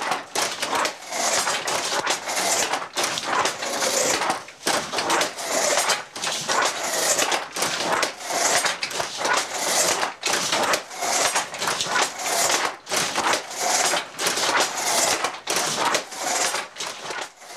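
A 150-year-old handloom being worked by hand: a steady run of clacks and knocks, several a second. The clatter comes in repeating cycles of a second or two as the shuttle is thrown and the beater is banged home.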